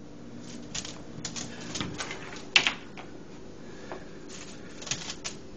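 Irregular light clicks and crinkly rustles in two clusters, with one sharper click about two and a half seconds in.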